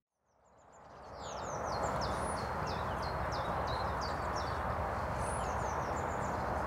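Outdoor ambience fading in: a small bird calling a run of short, falling chirps, several a second, over a steady rushing background noise.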